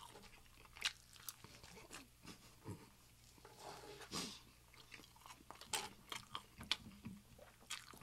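Close-miked chewing of breakfast food, with a few sharp clicks scattered through it, most of them in the second half.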